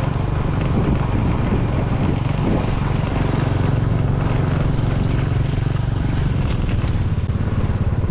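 Motorcycle engine running steadily, heard from on the moving bike.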